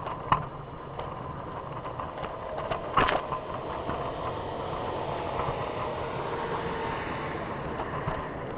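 Steady rolling rumble of a Trikke's wheels on pavement, muffled by a camera in a pocket, with a sharp click near the start and a louder knock about three seconds in.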